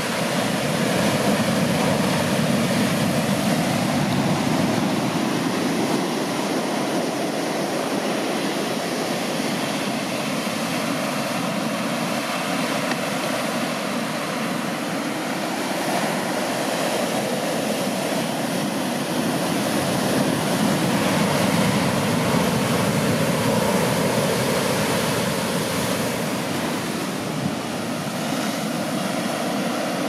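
Large ocean waves breaking and washing ashore, a steady roar of surf.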